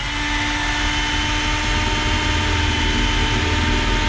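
Milwaukee M12 cordless drill spinning up and running at steady speed while boring a hole through stainless sheet metal, a steady whine with two held tones.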